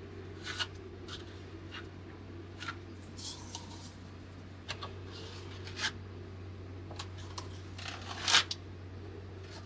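Scattered short scrapes, rustles and clicks of hand work spreading epoxy fairing filler over a steady low hum. The scrapes are loudest about eight seconds in.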